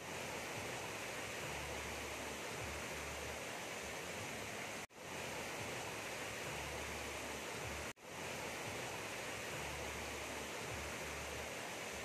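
Steady rush of flowing river water, cut off by two brief gaps of silence about five and eight seconds in.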